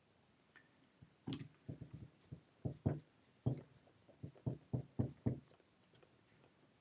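A quick run of about fifteen light knocks and clicks, some in close pairs, as the rotary hammer drill's housing and tools are handled during reassembly.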